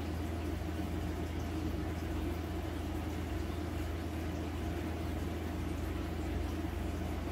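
Aquarium equipment running: a steady low hum from the tank's pump with bubbling from the air-stone streams.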